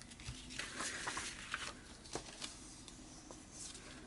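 Faint rustling of paper and card being handled and arranged, with a few light taps.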